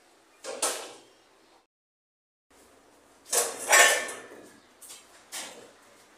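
Thin corrugated steel sheet being handled: a sharp knock, then after a short silence two louder clattering knocks with a brief metallic ring, and two lighter knocks near the end.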